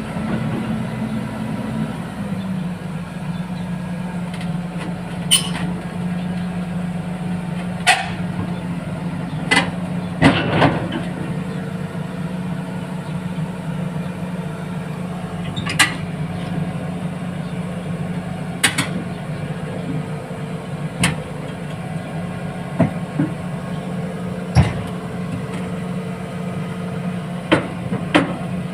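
Hydraulic excavator's diesel engine running steadily, its pitch dropping slightly about two seconds in, with about a dozen sharp metal clanks every few seconds as the machine climbs onto a self-loader truck.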